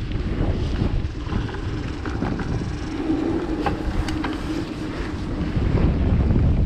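Wind buffeting the microphone of a mountain bike descending a dirt flow trail, with a constant low rumble and scattered sharp clicks and knocks from the bike and trail.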